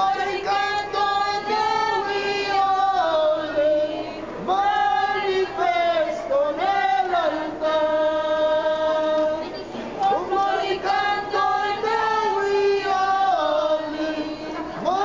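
A group of voices, women's and men's together, singing a slow song in long held notes that glide from one pitch to the next.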